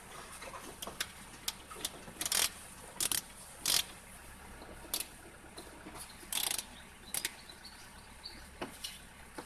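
Irregular clicks, knocks and short scraping sounds of hand work on parts, some louder near the middle.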